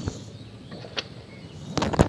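A few sharp knocks and rattles from handling a cylindrical mesh fish trap from a small fibreglass boat: one at the start, one about a second in, and a louder cluster near the end.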